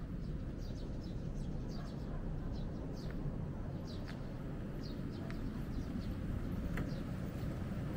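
Birds chirping in short, high, falling notes, scattered irregularly, over a steady low rumble.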